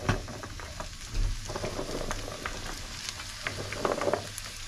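Pork, garlic and onion frying in a stainless steel pan, sizzling and crackling as a plateful of raw green beans is tipped in, with the rustle and knock of the beans landing. There is a louder knock at the start and another about a second in.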